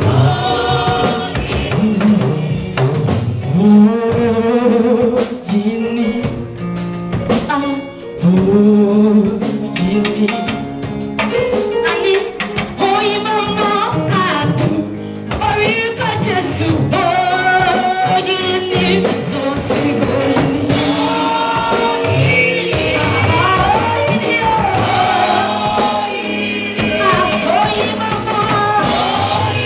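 Women singing a gospel song into microphones, backed by a live drum kit.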